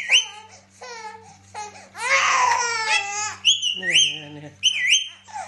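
A parrot's short, high calls, several with a quick upward swoop, alternating with a baby's crying and babbling sounds.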